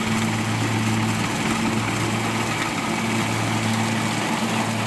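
Kubota DC-70 rice combine harvester running while it cuts standing rice, its diesel engine giving a steady, even drone.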